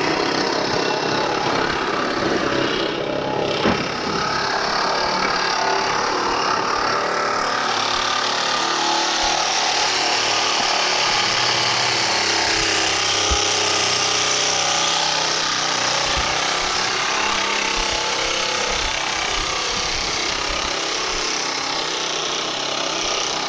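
Reciprocating saw cutting through burned trailer frame steel, running steadily with one short break a few seconds in.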